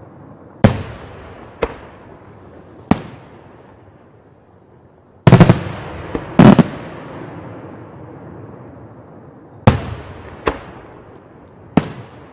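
Aerial firework shells bursting overhead: about a dozen sharp bangs, with a tight cluster of the loudest reports about five to six and a half seconds in. Each bang trails off in a rumbling echo.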